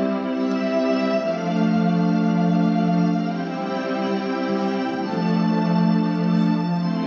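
Organ playing slow, sustained chords, the chord changing a little over a second in and again about five seconds in.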